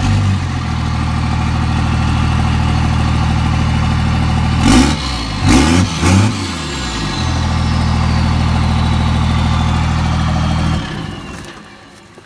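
Vehicle engine idling through an improvised oversized exhaust tip, a large black plastic tube over the tailpipe. It is revved in three short blips about five seconds in, then switched off near the end.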